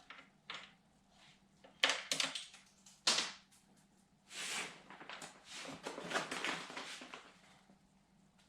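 Hand tools and metal parts being handled: a few sharp clicks and knocks, then several seconds of scraping and rustling.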